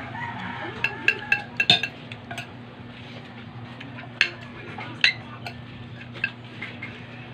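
Metal spoons clinking and scraping against plates while rice is eaten: scattered sharp clinks, a cluster of them in the first two seconds and a few more later. A steady low hum runs underneath.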